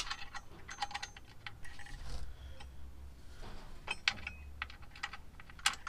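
Light metallic clicks and clinks of a washer and nut being worked onto the top bolt of a differential brace by hand, with one sharp click right at the start.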